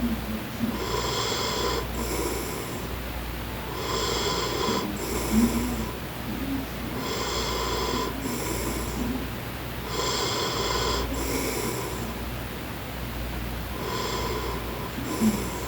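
A man snoring, one snore on each breath, repeating evenly about every three seconds, about five times.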